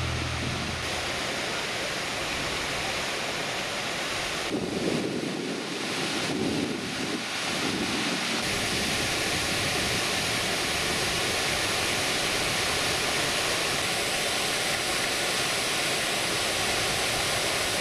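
Steady rushing splash of a large fountain, water pouring off the rim of its raised bronze basin and falling into the pool below.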